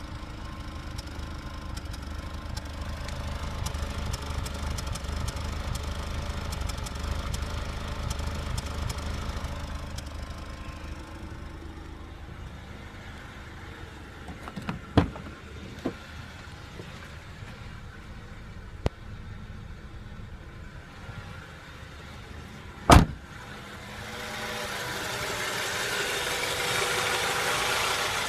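Acura Integra B18B1 four-cylinder engine idling roughly with a misfire on cylinder 3, the sign of a faulty spark plug wire. A few sharp clicks and one loud knock come in the middle, and near the end a louder hissing rush takes over.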